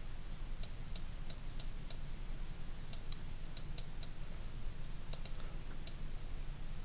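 About a dozen irregular, sharp clicks from computer input devices (mouse buttons and keys) over a steady low hum.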